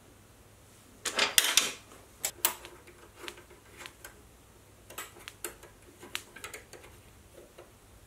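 Metal-on-metal clicks and clinks of a steel carriage stop being fitted onto a mini lathe's bed and locked with a hex key in its cap screw. A short clatter about a second in is the loudest, followed by scattered lighter ticks.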